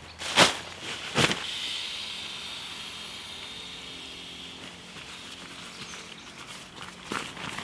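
Camping gear being handled while a hooped bivvy bag is pitched: two sharp rustles or knocks in the first second or so, then a steady hiss that slowly fades.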